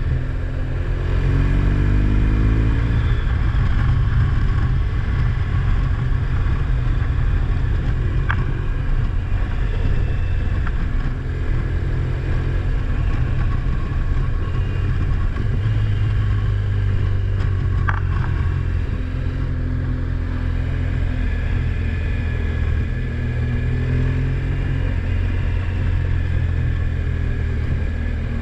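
Vehicle engine running, rising in pitch over the first few seconds as it speeds up, then settling into a steady low drone.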